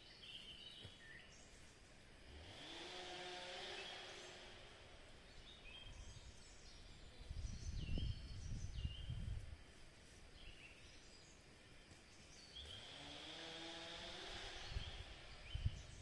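Faint outdoor ambience: small birds chirping, with a distant engine twice rising in pitch and holding for a couple of seconds. A low rumble a little after the middle is the loudest moment.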